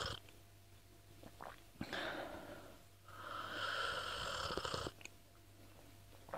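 A person drinking hot tea with audible, breathy sips and slurps. There is a short sip just under two seconds in and a longer slurp from about three to five seconds in, with small wet clicks of the mouth and swallowing around them.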